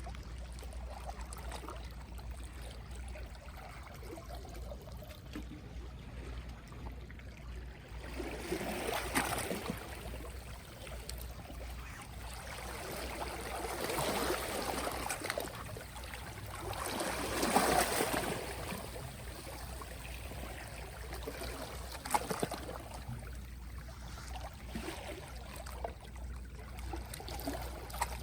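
Small, gentle sea waves washing in on the shore in four soft swells that rise and fall, the biggest about two-thirds of the way through.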